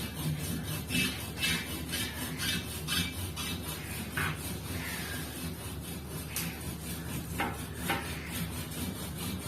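Hand saw cutting through a tree branch, its teeth rasping back and forth in the wood at about two strokes a second at first, then more unevenly.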